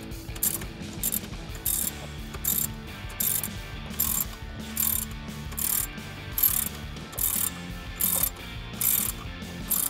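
Hand ratchet with a 10 mm socket clicking in short repeated bursts, roughly one every three-quarters of a second, as it runs down the bolts of a throttle body spacer.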